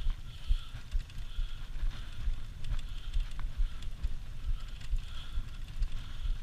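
Wheeled dog-sport cart rolling over a dirt track: the wheels rumble and the frame rattles with irregular knocks over the bumps.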